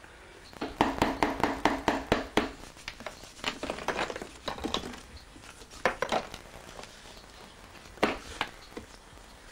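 Plaster mould being broken away by hand from a cast plaster form: sharp cracks and clinks of plaster snapping and shards knocking together, in a fast run of about ten in the first two seconds, then scattered bunches.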